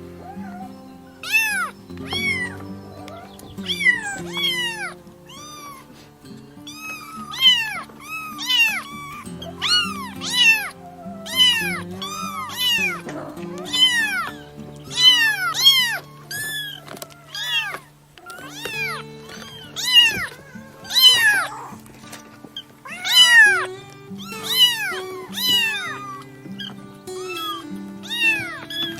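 Baby kittens meowing over and over in high-pitched calls that rise and fall, one or two a second, sometimes overlapping, over background music with held notes.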